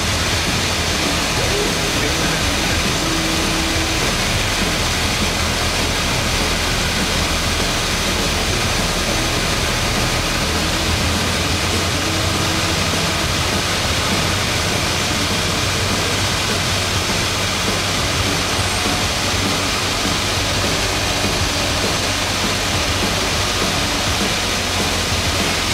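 Cessna 152's Lycoming O-235 four-cylinder engine and propeller droning steadily in flight, heard from inside the cabin together with the rush of air over the airframe.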